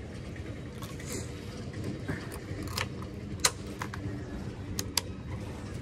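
A few sharp clicks and light metallic rattles, like a key and switches being worked on a motorcycle readied for a cold kick-start, over a steady low hum.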